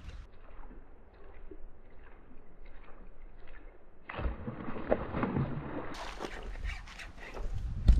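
Water sloshing and splashing, fainter at first and louder from about four seconds in, with abrupt changes in the sound.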